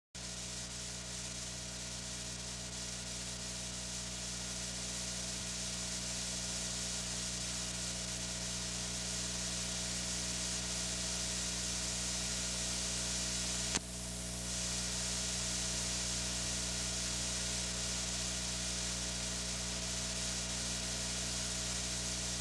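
Steady hiss with a low electrical hum from an old analogue home-video recording, with one sharp click about 14 seconds in, after which the hiss is briefly duller.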